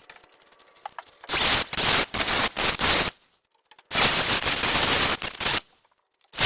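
Power tool cutting through the rusted sheet-metal inner sill of a Jeep Cherokee, a loud rattling noise run in two bursts of about two seconds with a short pause between, and a third burst starting near the end.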